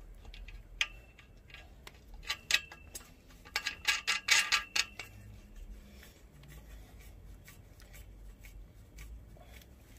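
Small metallic clicks and taps as a bolt and its washer are worked by hand into the steel tube of a hammock stand, with a quick flurry of ringing clicks about four seconds in, then quieter.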